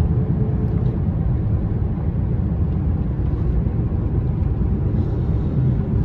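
Steady low rumble of a car's engine and tyres, heard from inside the cabin while driving.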